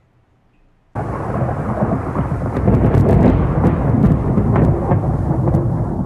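Thunder: a sudden crash about a second in that rolls on as a steady, loud rumble with sharp crackles.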